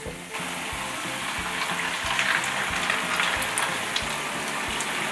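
Fish-paste batter noodles frying in oil in a stainless steel pot: a steady sizzle and bubbling that comes in a moment after the start, the oil kept at a low frying temperature. Light background music plays underneath.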